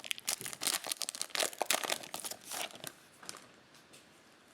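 A foil trading-card pack wrapper being torn open and crinkled for about three seconds, then it quiets down.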